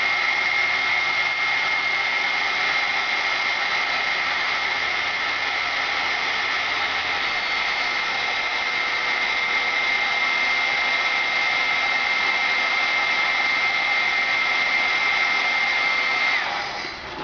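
Heat gun blowing steadily to shrink heat-shrink tubing, a rush of air with a steady high fan whine over it. It switches off near the end.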